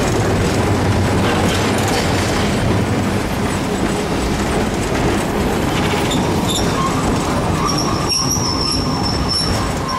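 Hiroden Type 100 tram, a Taisho-style wooden streetcar, running along street track, heard from inside the car: a steady rumble of wheels and running gear. A high squeal comes in at about eight seconds.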